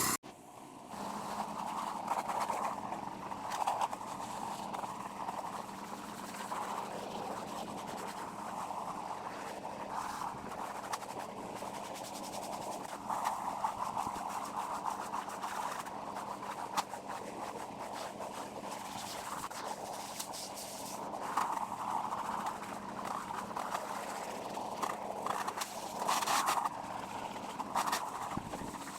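Pressure washer in use: a steady spray of water with a low engine hum underneath, growing louder in a few short surges.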